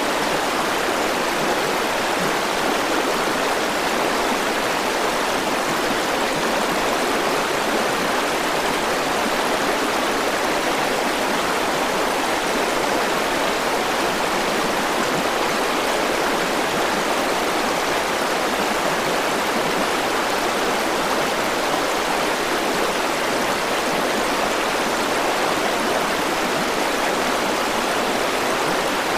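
River water flowing steadily over rocks, a constant rushing.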